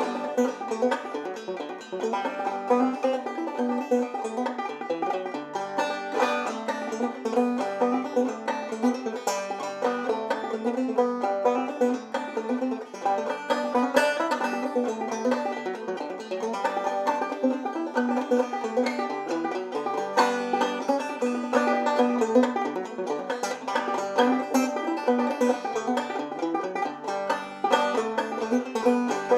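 Clawhammer banjo playing an old-time tune solo, a steady, unbroken stream of plucked notes.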